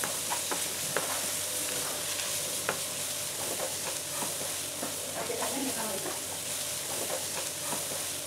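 Onion-tomato masala sizzling in oil in a non-stick frying pan while a spatula stirs it, with a steady hiss and sharp taps and scrapes of the spatula against the pan, several of them in the first three seconds.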